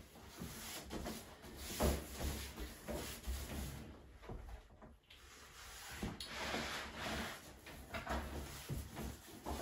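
Wide pasting brush swishing wallpaper paste across a sheet of lining paper on a pasting table, in a series of brush strokes, with the paper rustling under the brush.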